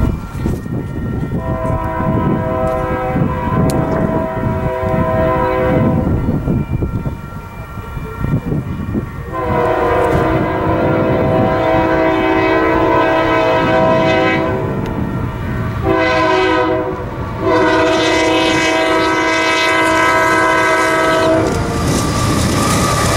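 Union Pacific diesel freight locomotive sounding its chime horn in the grade-crossing pattern of long, long, short, long as it approaches a level crossing. Under the horn the low rumble of the diesel engines and wheels on rail grows, and the train arrives alongside near the end.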